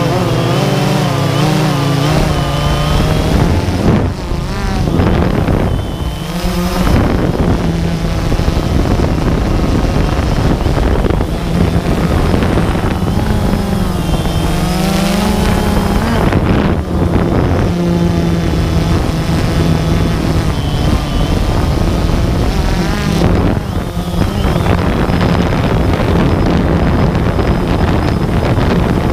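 A multirotor drone's motors and propellers buzz steadily, their pitch wavering and gliding up and down as the aircraft manoeuvres. Wind rushes on the on-board microphone.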